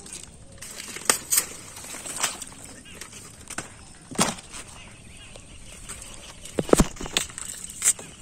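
Water hyacinth plants being broken apart by hand: irregular snaps and rustles of the fleshy stems and leaves, about eight in all, the loudest cracks near the end.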